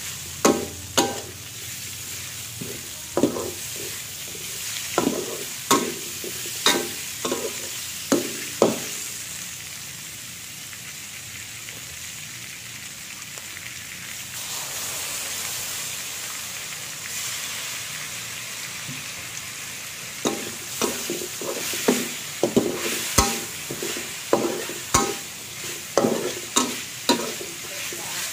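Greens and meat sizzling in a hot metal wok while a metal spatula scrapes and clanks against the pan as it tosses them. The clanking stops for about ten seconds in the middle, leaving only the steady sizzle, then starts again.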